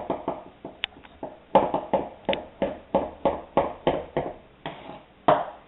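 A knife chopping on a cutting board: a quick run of hacking strokes, about three a second, for about three seconds, after a couple of isolated knocks.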